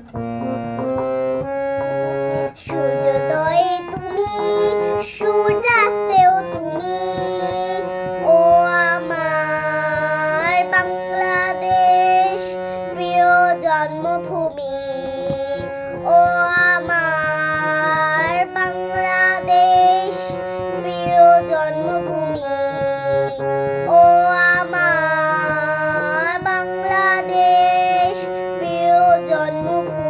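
A young girl singing solo over a steady keyboard accompaniment, holding long notes that slide and waver in pitch.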